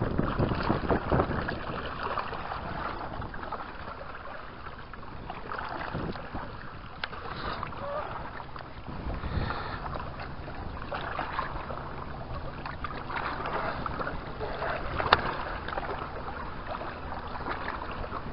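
Wind buffeting the microphone over small waves lapping against a rocky shoreline, with a single sharp click near the end.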